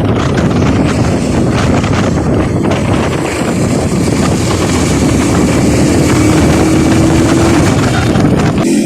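Vehicle engine running under way, with steady road and wind noise on the microphone; the engine note rises slowly in the second half.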